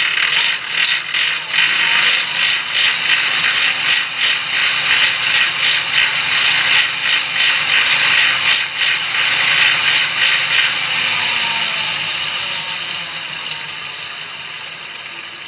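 Fixie bike's rear cog and drivetrain rattling and clicking loudly as the wheel spins, a steady ratcheting rattle with regular clicks a few times a second. About two-thirds of the way through the clicking stops and a whir fades away as the wheel slows. The owner asks whether this is a worn-out, slipping fixed cog.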